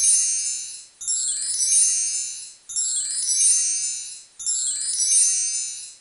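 Chime-like sound effect: a shimmering run of high, bell-like notes, played four times in a row, each run about a second and a half long and fading out before the next begins.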